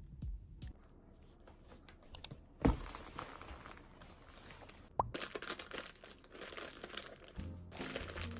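Clothes in clear plastic packaging bags rustling and crinkling as they are handled inside a cardboard shipping box, with one loud thump about a third of the way in and a sharp click a little past halfway.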